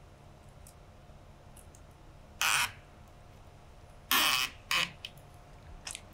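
A strand of rattan cane pulled through the woven cane lattice of a chair seat: three short scratchy rasps, one about two and a half seconds in and two close together around four to five seconds in, with a few light clicks near the end.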